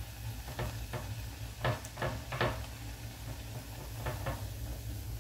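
Rice-flour vada deep-frying in hot coconut oil in a steel kadai: a steady sizzle over a low hum, with several short clicks and knocks against the pan, most of them in the first half.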